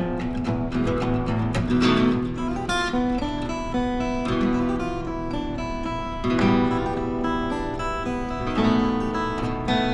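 Two acoustic guitars improvising together, one strumming and one picking melody, notes ringing over each other without a break.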